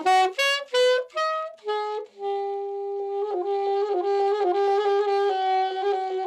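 Solo saxophone: a quick run of short, separate notes, then from about two seconds in one long held note with small quick dips in pitch.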